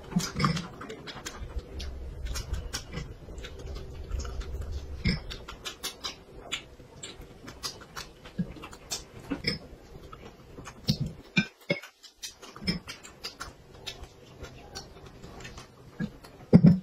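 Close-up eating sounds: a person chewing and smacking on dumplings, with chopsticks clicking against plate and bowl, heard as a string of irregular short clicks and smacks, loudest about eleven seconds in and near the end.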